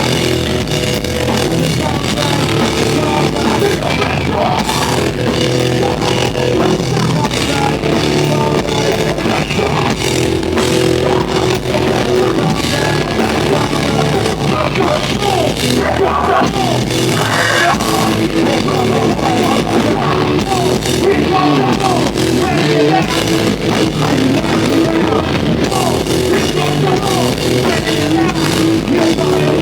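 Rock band playing live at full volume, with distorted electric guitar, bass and a drum kit keeping a steady beat, heard through a theatre sound system.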